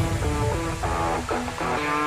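Background music: a melody of short notes stepping up and down in pitch.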